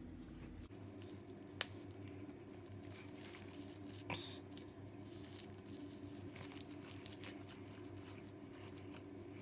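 Quiet handling of Play-Doh toy tools and dough: a couple of light plastic clicks and faint rustling over a steady low hum.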